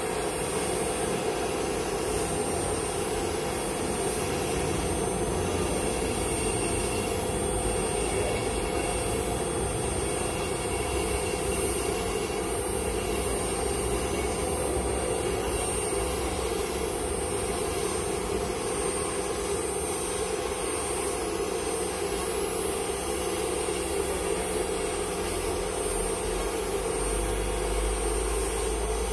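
High-speed electric milling spindle on a KUKA KR210 robot arm running and cutting into a block: a steady high whine over a broad rushing cutting noise, with a deeper rumble coming in near the end.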